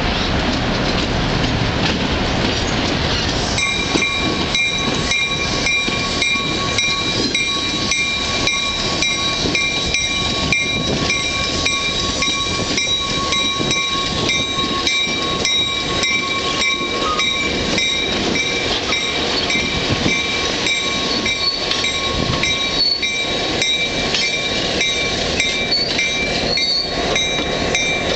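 Diesel locomotive passing slowly, engine running and wheels rolling on the rails. A few seconds in, its bell starts ringing steadily, about two to three strokes a second.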